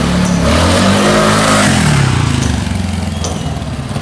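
TVS NTorq 125 scooter's single-cylinder engine accelerating, its pitch rising over the first second and a half, then dropping back about two seconds in as the throttle eases, and running steadier after that.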